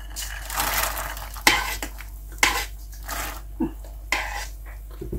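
Fresh green peas tipped from a glass bowl into a steel pot of soup, a short rushing splash, followed by a metal spoon stirring the soup and clinking against the pot several times.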